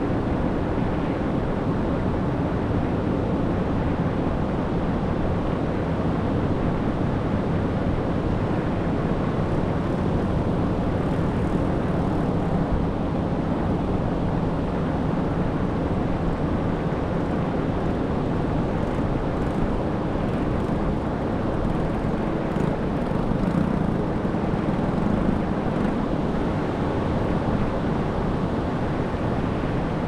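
Ocean surf heard as a steady low roar, without separate wave crashes standing out.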